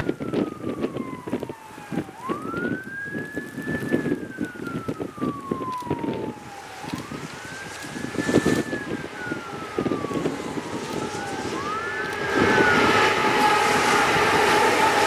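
A siren wailing in three slow cycles about four and a half seconds apart, each a quick rise in pitch followed by a long, slow fall. Near the end a louder, steady rumble comes in under it.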